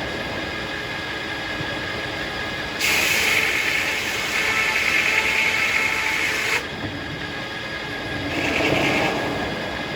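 Circular sawmill running, its blade spinning with a steady whine, and cutting into a hackberry log for about four seconds in the middle before dropping back to a free spin.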